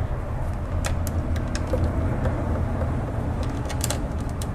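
A few faint small metallic clicks as a washer and nut are handled and started by hand onto a mud-flap mounting bolt, over a steady low rumble.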